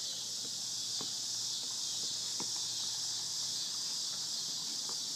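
Steady high-pitched drone of a summer insect chorus (crickets or cicadas), with a few faint taps.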